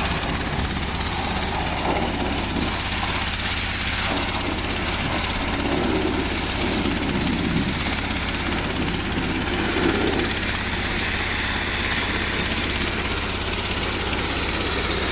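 Engine of a Dongfeng sand-suction pump machine running steadily at an even speed.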